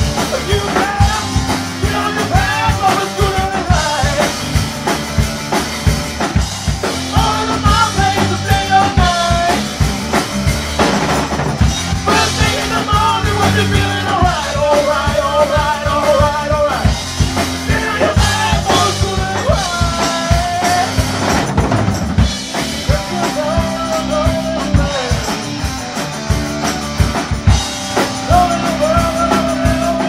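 Band music: a drum kit keeps a steady beat under bass and a lead melody line that bends in pitch.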